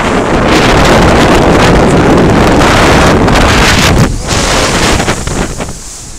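Strong gale wind buffeting the microphone over the noise of rough surf breaking against rocks. The wind noise dips briefly about four seconds in and again near the end.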